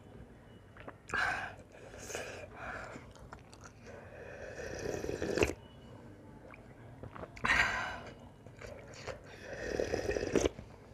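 Close-up eating sounds: slurps of hot soup from a spoon, with chewing between, and near the end a long slurp drunk straight from the bowl.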